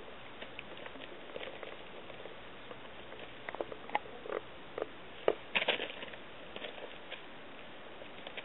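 Plastic tarp crinkling and rustling under cats' paws as they scamper and pounce, in scattered short crackles and taps. The crackles are thickest in the middle, loudest about five seconds in.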